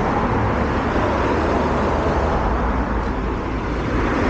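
Steady street traffic noise: cars driving past on the road.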